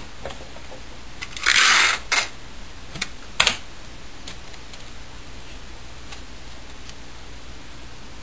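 Clear adhesive tape pulled off a desk dispenser in one short rasp about a second and a half in, followed by a few light clicks and knocks as the tape is torn and the dispenser is set down on the table.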